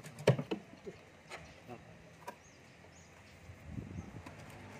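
A few knocks and clicks as a truck engine's oil pan is worked loose by hand, the loudest just after the start. Faint bird chirps in the background.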